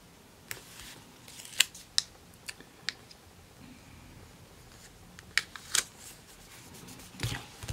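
Paper stickers being handled, peeled and pressed onto planner pages: a handful of short, sharp clicks at uneven spacing with faint paper rustling between them.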